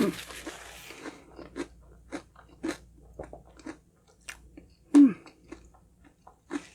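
Close-up biting and chewing of a honey crunch cake's crunchy honeycomb topping: a loud crunching bite at the start, then a run of short, irregular crunches. A brief "mm"-like sound from the eater about five seconds in.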